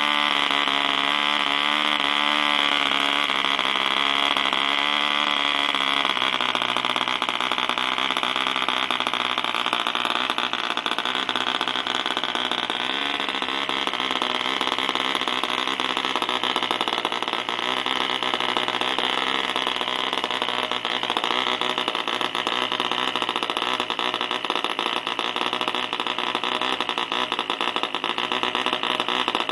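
Mills 1.3 cc two-stroke model diesel engine running under load with its propeller: its speed wavers for the first six seconds, then jumps to a higher, faster, steadier note that holds for the rest of the time.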